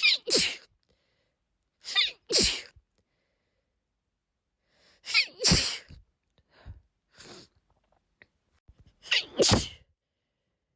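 A woman sneezing four times in a sneezing fit, a few seconds apart, each sneeze a quick two-part "ah-choo". A few faint short sounds come between the third and fourth sneezes.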